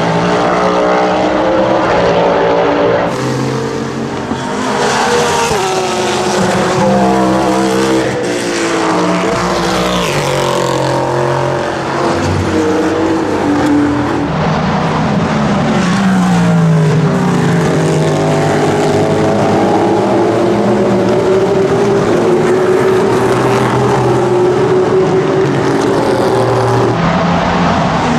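Cadillac V-Series.R GTP prototype race car's naturally aspirated 5.5-litre V8 running hard, its engine note climbing and dropping over and over as it accelerates, shifts and lifts.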